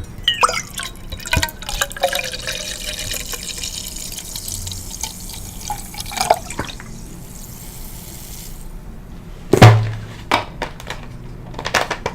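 Liquid pouring into a glass for about eight seconds, a steady hiss that stops abruptly. A sharp knock follows near ten seconds, then a few light clicks.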